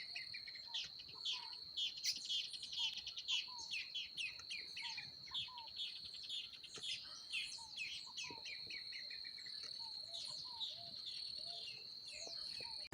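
A chorus of wild birds calling and singing, with many short chirps and some lower whistled notes, over a steady high-pitched drone of insects.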